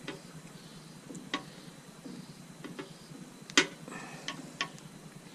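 Irregular sharp clicks and taps, about seven of them, the loudest about three and a half seconds in: small hand tools working on motorcycle indicator wiring.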